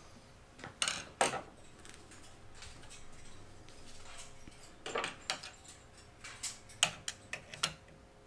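Scattered metal clicks, clinks and taps of a hand tool working a roller into an aluminum sliding-door roller bracket, with two sharp knocks about a second in and a cluster more around five to seven seconds in.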